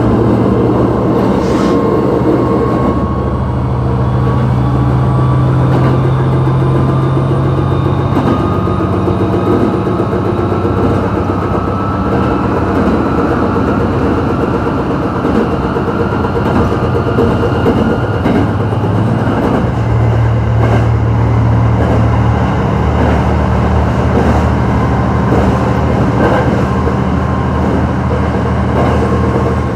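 ET122 diesel railcar running along the line: a steady diesel engine drone mixed with rail noise, its low engine note shifting a few times. A faint whine rises slowly in pitch over the first half.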